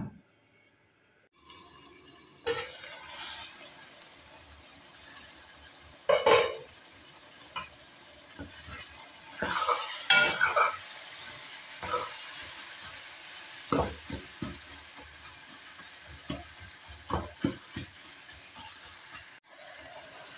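Minced meat and tomatoes sizzling in a metal pot, with a spatula stirring and scraping against the pot in short, irregular strokes.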